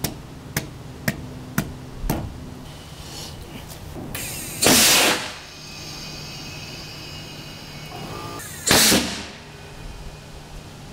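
Big homemade pneumatic air cannon firing twice, about four seconds apart, each shot a loud blast of released air lasting about half a second; the first launches a potato at about 232 mph. A few sharp ticks come in the first two seconds, before the shots.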